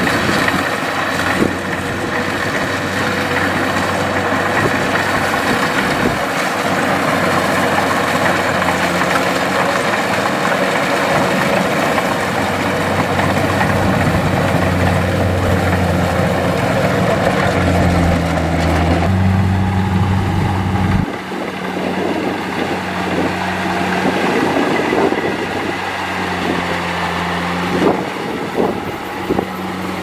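Kubota DC-70 Plus rice combine harvester's diesel engine running steadily under load as it cuts and threshes, its note dipping and then rising briefly about two-thirds through. Soon after, the sound changes to a different harvesting machine's engine, quieter, with irregular clattering.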